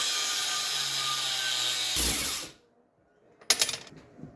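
A power cutting tool cuts through a piece of steel with a loud, steady hiss and shuts off about two and a half seconds in. A second later comes a short sharp clatter.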